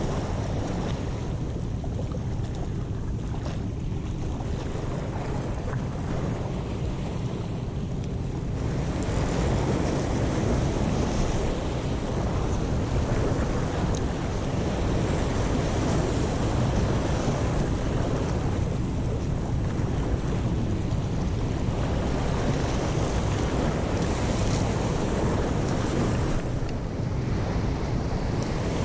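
Wind buffeting the microphone over sea waves washing and breaking against the rocks, a steady rumbling rush that grows louder about eight or nine seconds in.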